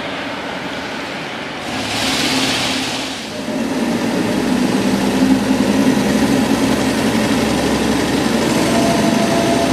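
Vehicles driven by the compressed-air Di Pietro rotary piston engine running: a brief hissing swell about two seconds in as a small car passes, then from about three and a half seconds a steady, louder running sound with a low hum as a flatbed utility vehicle drives.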